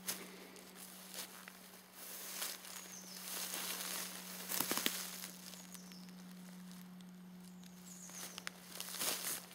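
Footsteps and rustling on a dry forest floor of needles, grass and twigs, with sharp crackles about halfway through and again near the end. A steady low hum runs underneath.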